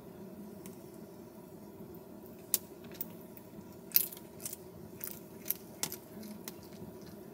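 A cat eating from a small plate: a run of sharp crunchy clicks of chewing and the plate shifting, the loudest about four seconds in, over a low steady hum.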